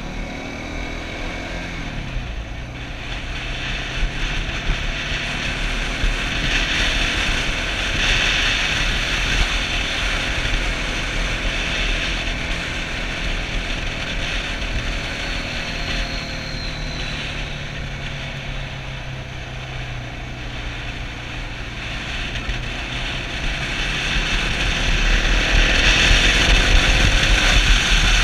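Suzuki DR650's single-cylinder four-stroke engine running on the move, with wind rushing over the microphone. Its pitch drops over the first two seconds as it slows, holds through the middle, then rises and grows louder near the end as the bike accelerates.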